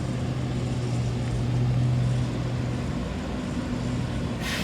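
Train standing at the station platform, its machinery giving a steady rumble with a low hum that swells and then fades after about three seconds. A short hiss comes near the end.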